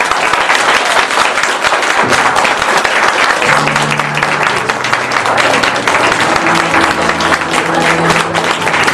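Audience applauding with steady, dense clapping. About three and a half seconds in, music with sustained low notes comes in under the applause.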